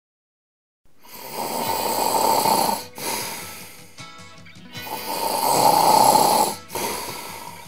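Cartoon snoring sound effect for a sleeping character: two long snores of about two seconds each, the first starting about a second in, with light music heard between them.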